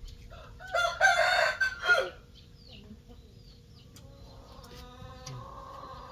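A rooster crowing loudly about a second in, lasting about a second. A fainter, drawn-out call follows from about four seconds in, with small birds chirping faintly throughout.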